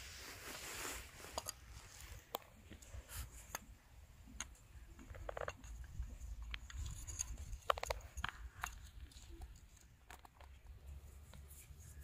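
Scattered light clicks and knocks of short bamboo fishing rods and plastic floats being picked up and handled, over a steady low rumble.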